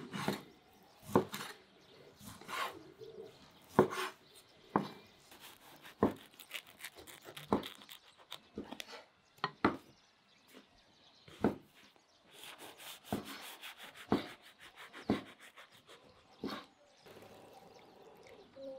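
Kitchen knife striking a wooden cutting board in single chops, a sharp knock about every second or so, as cooked meat is cut into pieces.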